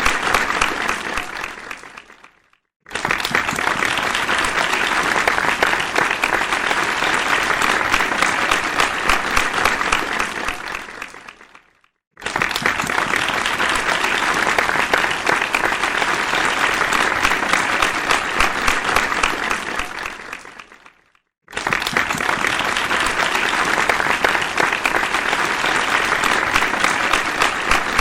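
Applause from a large crowd, a dense patter of many hands clapping, in repeated stretches: it fades out, stops briefly, starts again at full strength, fades out again, with this cycle coming about every nine seconds.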